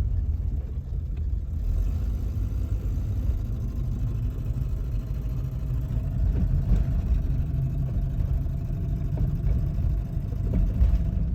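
Volvo 240 engine running with a continuous low rumble, the odd noise of an engine starved of fuel as the tank runs dry.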